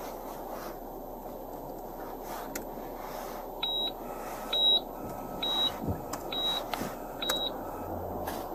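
Five short, high electronic beeps, about a second apart, from equipment in a police patrol car, over a steady low rumble of the car's cabin.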